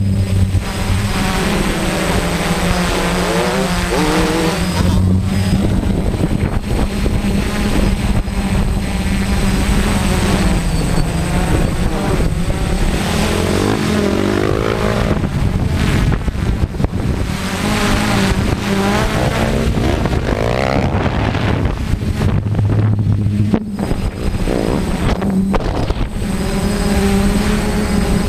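Quadcopter's motors and propellers running steadily, heard from the camera on board, with a constant hum whose higher tones waver up and down as the drone manoeuvres.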